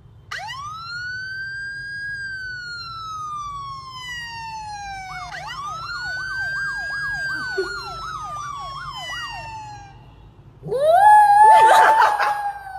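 A siren wailing twice, each time rising quickly and then falling slowly, the second time with a fast warbling tone over it. Near the end a much louder wail rises and holds.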